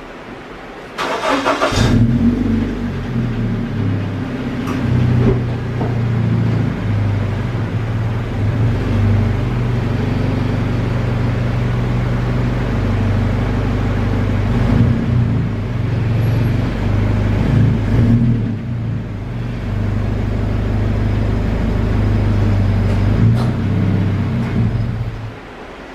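Scion FR-S's 2.0-litre flat-four engine starting about a second in, then running at low speed with a few brief swells in throttle as the car creeps forward onto wooden blocks, and shutting off near the end.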